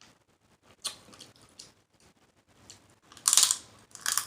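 Snow crab leg shell cracking and crunching between teeth as it is bitten open: a few faint clicks, then a loud crunch about three seconds in and more sharp cracks near the end.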